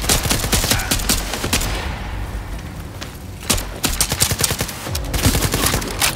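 Two bursts of rapid automatic fire from a blaster, each a quick run of sharp shots: the first lasts about two seconds, and the second starts about halfway through and goes on to near the end.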